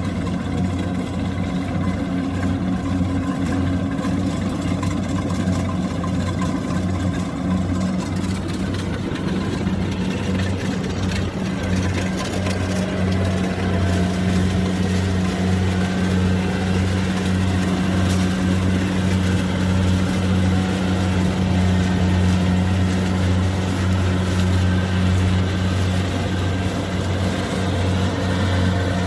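Diesel engines of a Kubota DC-70 combine harvester and the tractor towing it, running steadily under load as they work the sunken combine out of the mud. A deep, even drone that gets slightly louder about halfway through.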